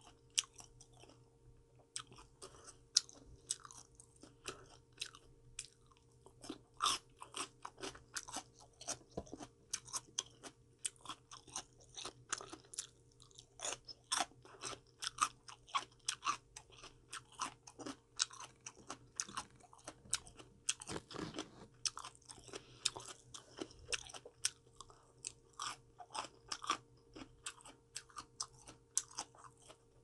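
A person chewing crunchy raw vegetables and fruit: an irregular run of crisp crunches, several a second, with a couple of short pauses.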